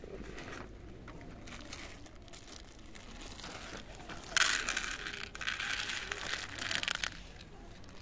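Clear plastic bag of dry cat food crinkling as kibble is poured onto a plastic plate, starting suddenly about halfway through and lasting a couple of seconds.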